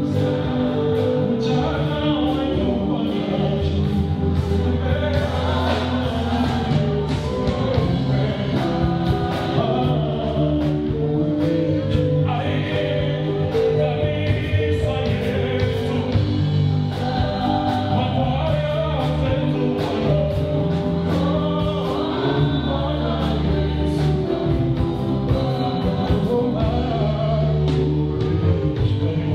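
Gospel music: a choir singing over accompaniment with sustained low notes and a steady beat.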